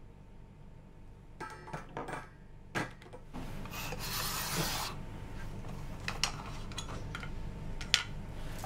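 Plastic labware being handled on a bench: a few sharp clicks as plastic tubes are set into a wire rack, then a plastic petri dish rubbing across the bench for a second or two about three seconds in, with a few light clicks as its lid is lifted off. A steady low hum runs underneath.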